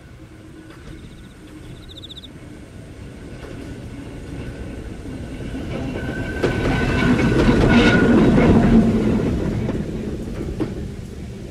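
Ueda Kōtsū 'Marumado' round-window electric car MoHa 5253 passing close by: it grows louder over several seconds, wheels clicking over the rail joints at its loudest about eight seconds in, then fades as it goes away. Crickets chirp faintly beneath it early on.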